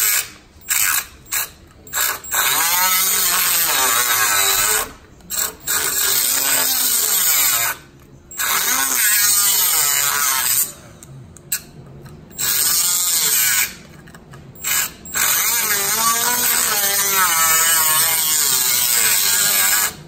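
Die grinder with a cutoff wheel grinding rust and debris out of the snap ring groove of a steel wheel hub. It runs in repeated bursts that stop and start, and its whine rises and falls in pitch as the wheel bites into the metal.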